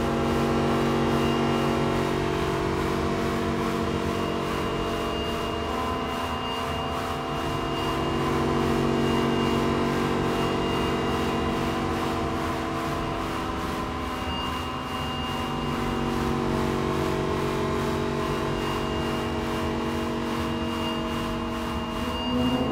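Slow music of long-held chords that move to new notes every few seconds, over a steady rushing hiss like blizzard wind.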